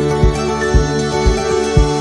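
Music with a steady beat of about two low thumps a second under held, sustained notes.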